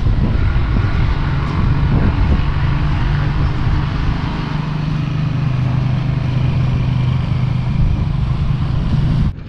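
A motor running steadily, a constant low hum over low rumbling noise; it cuts off suddenly near the end.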